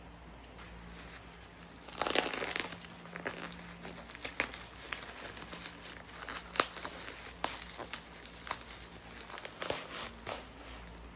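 Plastic bubble wrap crinkling and crackling as it is handled and pulled off a package. It starts with a dense burst of crinkling about two seconds in, then scattered sharp crackles.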